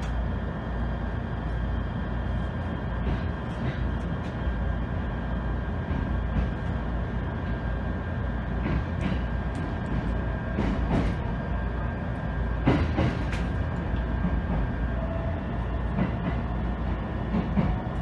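Cabin noise inside a local electric train pulling out of a station: a steady running rumble under a faint steady high tone, with scattered clacks from the wheels on the rails.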